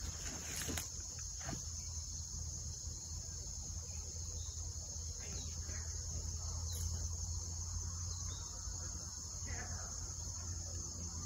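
Steady, continuous high-pitched chorus of insects such as crickets, over a low steady rumble.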